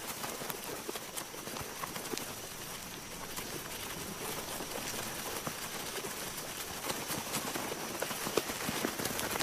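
Swarm of driver ants (siafu) crawling through dry leaf litter: a dense crackling rustle full of small ticks, growing a little louder near the end.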